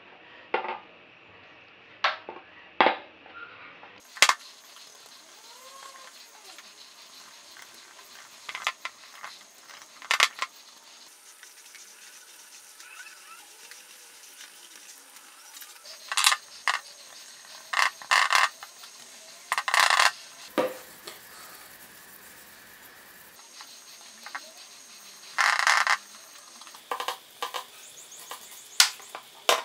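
Scattered metallic clinks and knocks, a few ringing on briefly, as cast-iron stove parts made from manhole covers and frames are handled and brushed with heat-resistant paint.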